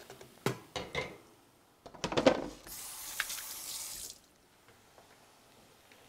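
A few knocks and a loud clatter, then a kitchen faucet runs at the sink for about a second and a half and shuts off.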